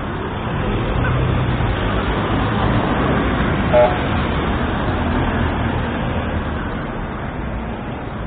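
Road traffic running steadily, with a short car horn toot about four seconds in.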